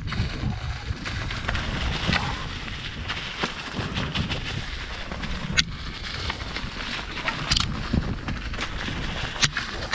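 Mountain bike descending fast on a rough trail: wind buffeting the camera microphone and tyres rolling on gravel, with sharp knocks and rattles from the bike over bumps, a few of them louder.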